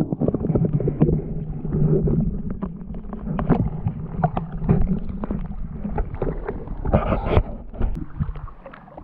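Water heard through an action camera held underwater beside an inflatable kayak: a muffled slosh and bubbling full of small knocks, over a low steady drone. Near the end the camera comes out of the water and the sound turns quieter and more open.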